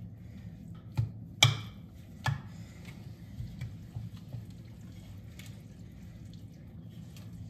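Wooden spoon stirring a wet pancake batter in a mixing bowl, with a few sharp knocks of the spoon against the bowl. The loudest knock comes about a second and a half in.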